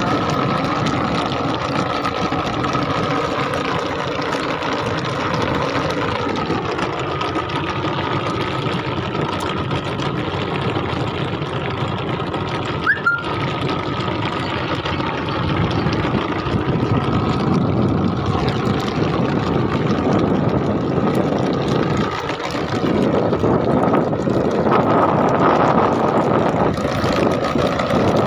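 Tractor engine and its towed chain trencher running steadily under load as the trencher cuts through soil, with a short click about halfway and the noise growing somewhat louder in the second half.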